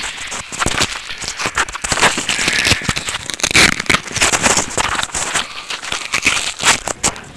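Close, dense crackling and rattling with many sharp clicks: a body-mounted camera being handled and jostled as its wearer moves over gravelly ground.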